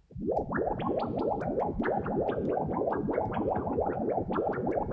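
Synthesized water-droplet sound from the Vital soft synth: a dense stream of short blips, each gliding quickly upward in pitch, many a second. The patch is run through delay and flanger effects for a bubbly, underwater texture.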